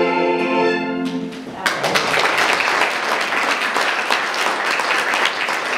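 A Schrammel quartet of two violins, accordion and contraguitar holds the song's final chord, which stops about a second and a half in. The audience then breaks into steady applause.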